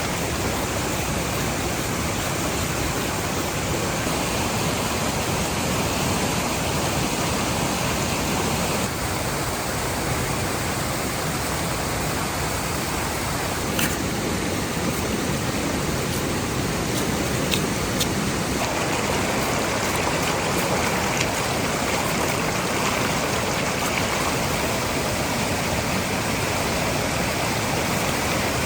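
Waterfall rushing steadily, a continuous even roar of falling water, with a few faint clicks about halfway through.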